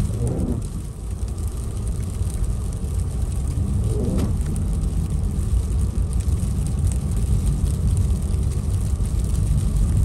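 Steady low road and tyre noise inside a car's cabin on a wet road, with the windshield wipers swishing across the glass twice: right at the start and again about four seconds in.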